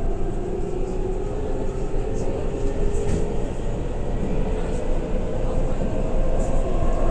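Onboard running sound of a Keihan 9000 series electric train underground: a steady rumble of wheels on rail with a motor whine that climbs in pitch near the end as the train gathers speed.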